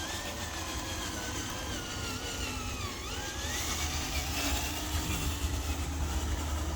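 Electric motor of a homemade RC dump truck running with a whine that rises and falls in pitch as its speed changes. There is a steady low rumble under it that gets louder near the end.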